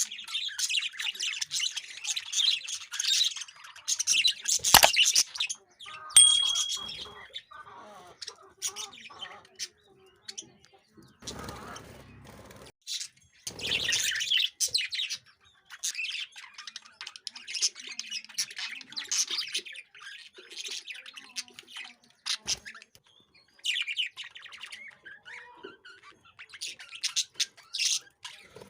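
Lovebirds chattering in bursts of shrill, rapid chirps, with quieter gaps between the bursts. There is one sharp knock about five seconds in.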